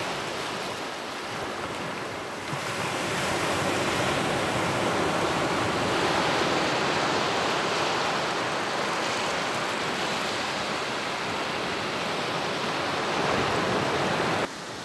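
Ocean surf breaking and washing up over a dark pebble beach: a steady rush of water that swells louder about two seconds in and drops off sharply just before the end.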